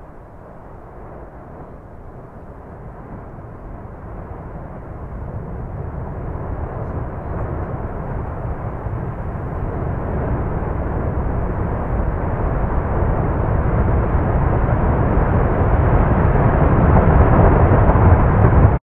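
Lava fountain erupting from a volcanic crater: a low rushing rumble that builds steadily louder as the fountain surges up in a geyser-like burst. It cuts off suddenly at the end.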